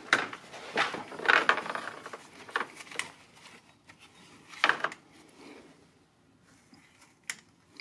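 Handling noise from a rubber transmission cooler hose being fed past metal parts under a truck's front end: scattered clicks, knocks and scraping from the hose and gloved hands, busiest in the first five seconds with the loudest clatter around a second and a half in and again just before five seconds.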